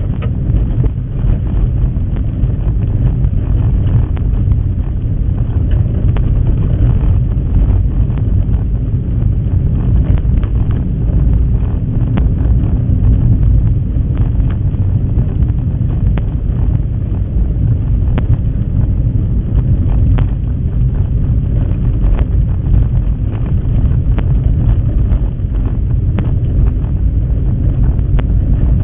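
A vehicle driving along a rough dirt and gravel track, heard from inside the cab: a steady low rumble of engine and tyres, with scattered short knocks and rattles from the bumps.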